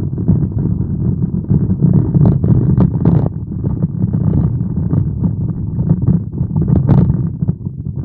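Rain drumming on a car's roof and windshield, heard from inside the cabin as a loud, dense low rumble over the car's road noise, with a few sharper taps about two, three and seven seconds in.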